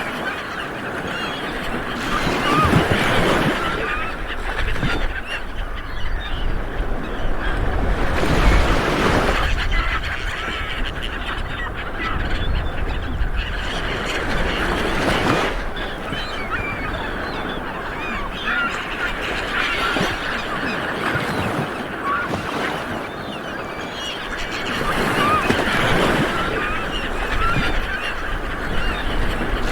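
Light waves breaking on a beach, the wash swelling and falling back every several seconds, with birds calling repeatedly over the surf.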